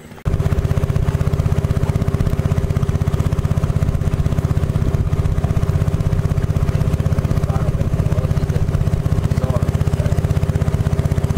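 A boat's motor running steadily: a low, even drone with a fast regular beat that cuts in suddenly just after the start and holds unchanged.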